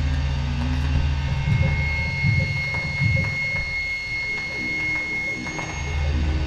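Improvised electronic noise music: a low buzzing drone under a steady high whine, with crackles and clicks. The drone gives way to rougher noise after about a second and a half and comes back near the end.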